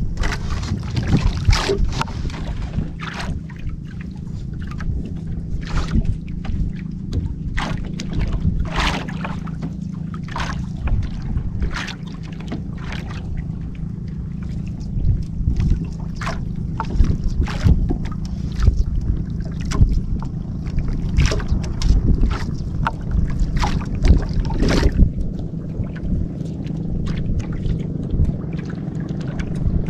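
Longline being hauled in by hand over the side of an outrigger canoe: irregular knocks, rustles and small splashes of line and water against the hull, over a steady low hum and wind.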